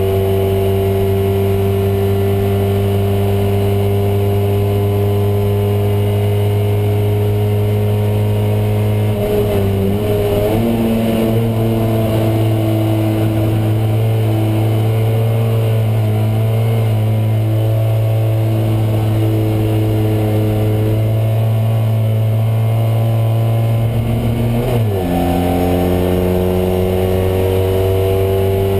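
Fiat 126p race car's air-cooled two-cylinder engine running hard at high revs, heard from inside the cabin. The note wavers and shifts about ten seconds in, then dips and climbs again near the end.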